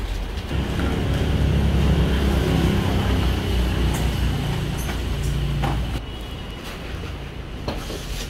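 An engine running, with a low even drone that swells about half a second in and drops back after about five seconds.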